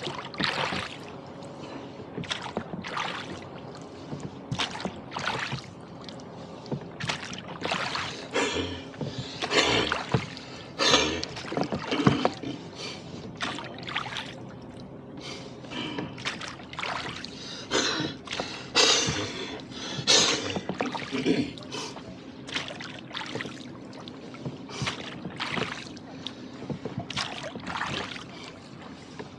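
Rowboat being rowed on wind-chopped lake water: frequent irregular splashes and slaps of water against the hull and oars, some much louder than others.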